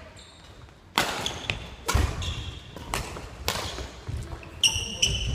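Badminton doubles rally in a large gym hall: a run of sharp racket strikes on the shuttlecock, about one or two a second, starting about a second in. Near the end come high sneaker squeaks on the wooden floor.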